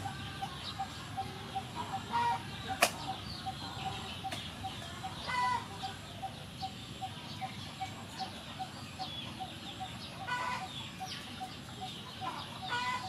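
Yard ambience: hens clucking every few seconds over a steady repeated note, about three a second, and scattered small-bird chirps. One sharp click comes about three seconds in.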